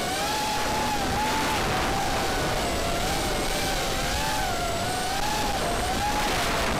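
FPV racing quadcopter's motors and propellers whining, the pitch wavering up and down continuously with the throttle over a steady rushing hiss.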